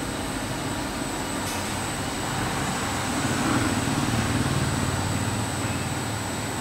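Drum coffee roaster running, a steady machine hum that swells louder for a couple of seconds midway.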